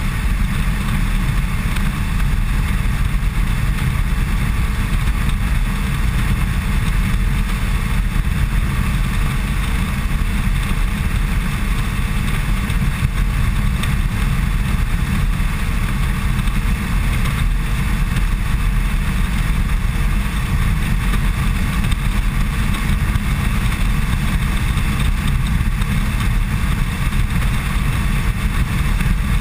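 Cruiser motorcycle riding steadily at road speed: a constant engine drone under a heavy, even rush of wind on the microphone, with no change in speed or gear.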